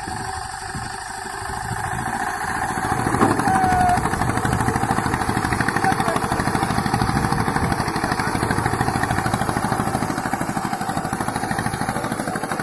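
Single-cylinder engine of a jugaad tempo chugging under load as its front drive wheel spins in loose sand, the vehicle stuck and straining to pull free while being pushed. It grows louder about two seconds in, then runs with a steady, even chug.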